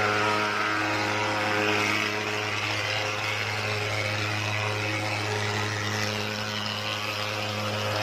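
Mosquito fogging machine running, a steady buzzing drone as it puffs out thick insecticide fog.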